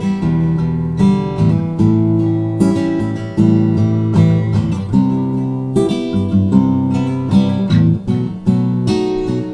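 Acoustic guitar strumming chords, changing chord about once a second, with no singing.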